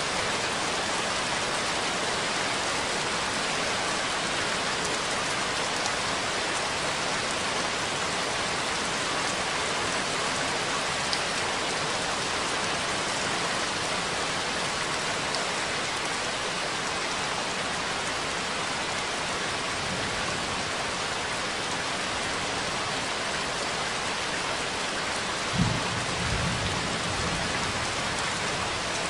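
Steady, even rain, with a short low rumble of thunder near the end.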